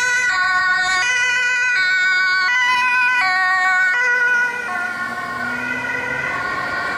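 Ambulance's two-tone emergency siren, alternating between a high and a low note about every three-quarters of a second. It grows fainter after about four and a half seconds as the vehicle drives away.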